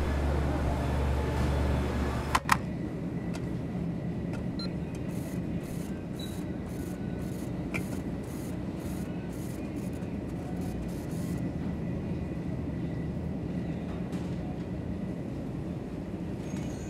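Steady background hum and low rumble of a supermarket aisle. A sharp click comes about two and a half seconds in, after which the deep hum drops away and a lighter steady rumble goes on.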